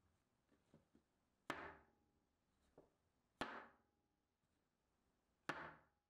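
A metal loaf tin full of castella sponge batter rapped down on the work surface three times, about two seconds apart, each a sharp knock with a brief metallic ring. The tapping knocks large air bubbles out of the batter before baking.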